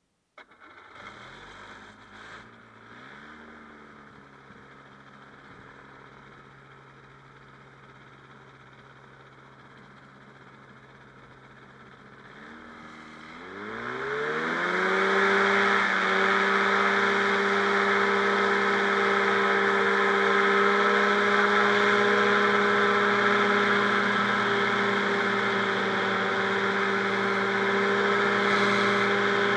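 Rotax 582 two-stroke twin engine of a powered parachute starting up and running at low idle, then revving up over about two seconds, a little under halfway through, to a steady, much louder high-power drone.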